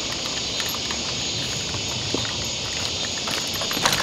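Footsteps on a gravel path over a steady high hiss, the steps growing closer and more frequent near the end.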